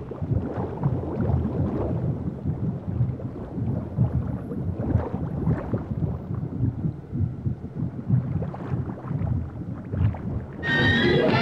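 A dense, irregular low rumble made of many small uneven knocks and swishes, with no melody. Music with bright sustained notes comes back in near the end.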